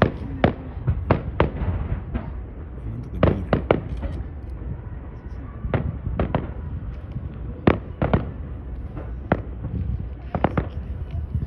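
Aerial fireworks bursting: a long run of sharp bangs at irregular intervals, some in quick pairs and clusters, over a steady low rumble.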